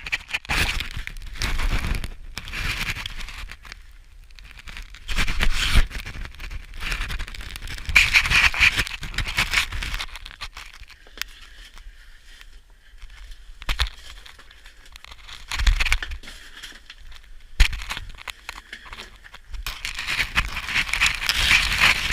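Irregular scraping, rustling and crinkling noises in uneven bursts, with a few sharp knocks in between.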